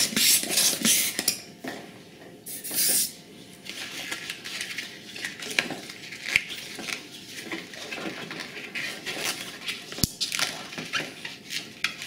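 Latex 160 modelling balloon squeaking and rubbing under the fingers as it is handled, with loud rushes of air from the hand pump in the first second and again around three seconds in. A sharp click near the end.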